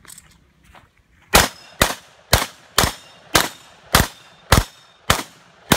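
Glock pistol firing nine rapid, evenly spaced shots, about two a second, beginning a little over a second in.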